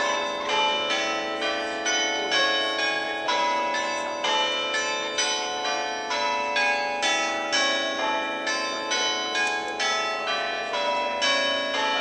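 Nelson Christ Church Cathedral's tower bells ringing, one bell struck after another in a steady run of about two strikes a second, each note ringing on into the next.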